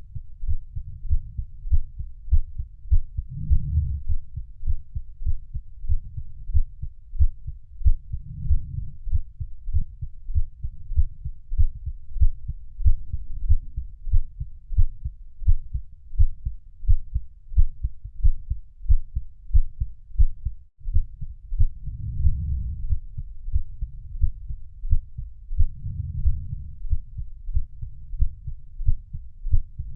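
Heartbeat beating steadily in low, muffled thumps, with a louder low swell every four to five seconds and a brief drop-out about two-thirds of the way through.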